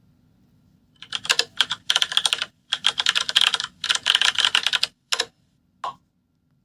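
Computer keyboard typing sound effect: runs of rapid keystrokes that start about a second in, with brief pauses between runs, ending in two short isolated key taps.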